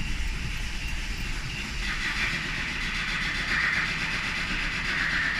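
SsangYong Kyron 2.0-litre diesel engine running just after start-up, with a rapid, regular knock from inside the engine over a steady hiss. The knock is the fault the car came in for, and the mechanic expects to remove the cylinder head to find its cause.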